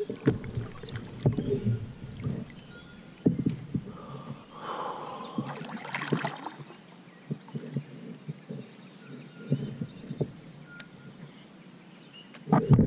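Kayak paddling on calm river water: the paddle dipping and splashing, with repeated knocks of the paddle against the kayak hull, and a cluster of louder knocks near the end.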